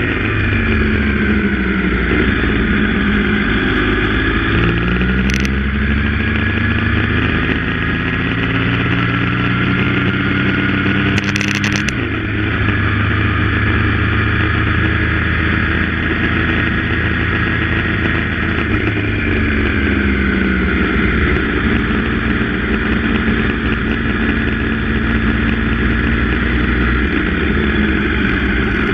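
Yamaha MT-09's inline three-cylinder engine through an SC-Project full exhaust, heard from on the bike while riding. The engine note drops at the start, then climbs steadily for several seconds and changes abruptly about twelve seconds in. It runs on steadily, then falls and rises again near the end.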